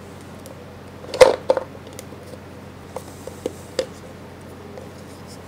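Hard plastic clicks as a Garmin zūmo XT2 GPS is pressed into its mounting cradle, a tight fit. One sharp snap comes about a second in, then a few lighter clicks and taps.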